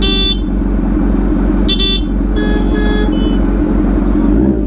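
Kawasaki Ninja H2R superbike engine idling steadily, with several short vehicle horn toots over it: one at the very start, then a cluster about two to three seconds in.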